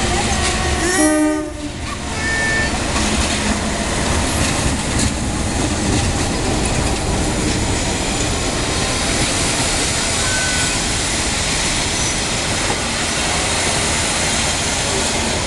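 Passenger train hauled by a CC 201 (GE U18C) diesel-electric locomotive passing at close range. There is a short horn blast about a second in, then the steady wheel-on-rail noise of the coaches going by.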